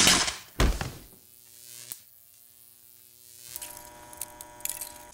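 Electric shock sound effect: a sharp zap and a second, deeper bang as a live high-current power supply is touched, dying away within about a second. A faint hum follows, and near the end a steady electrical buzz with crackling comes in.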